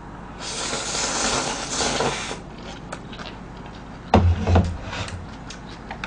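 Instant noodles being slurped loudly for about two seconds. About four seconds in, two low knocks as a small bowl is set down, then light clicks of chewing and chopsticks.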